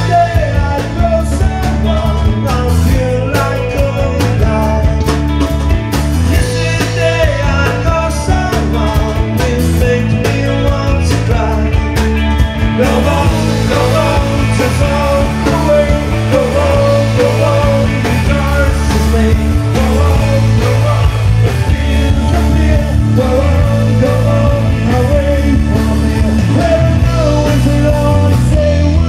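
Rock music with a singing voice over a steady drum and bass beat.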